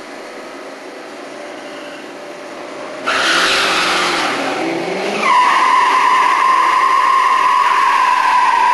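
Drag-race cars' engines at the start line. A sudden loud rush of engine noise comes about three seconds in, and from about five seconds a steady high-pitched tone rings over it.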